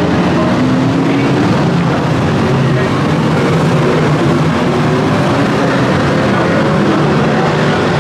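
A pack of F1 stock cars racing together, many V8 engines running loud at once, their pitches rising and falling as the cars accelerate and lift.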